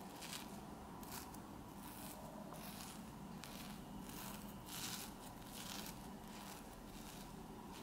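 Homemade slime being stretched and squished by hand, giving irregular faint crackles about once a second.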